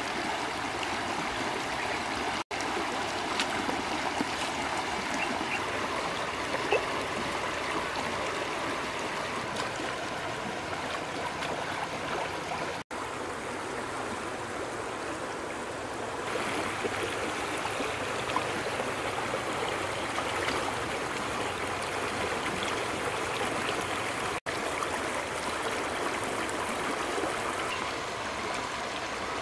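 Shallow stream rushing and babbling over rocks, a steady wash of running water. The sound drops out for a split second three times.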